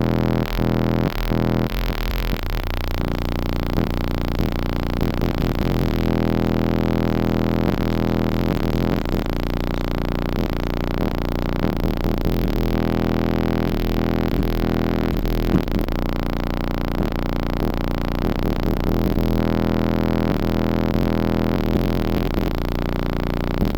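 Bass-heavy synthesizer music played loud through a car audio system of twenty-four 10-inch subwoofers, with a strong, sustained low end.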